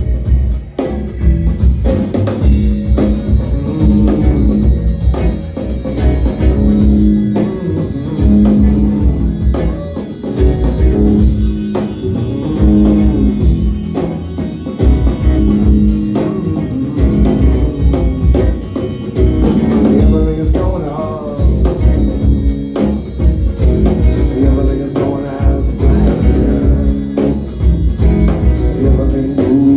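A rock band playing live: a repeating upright bass line under a drum kit and guitar.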